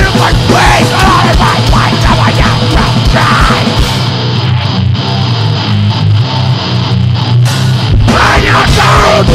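Powerviolence band playing fast, loud, distorted guitar over rapid drums. About four seconds in, the drums drop out and leave mostly guitar; the full band comes back in shortly before the end.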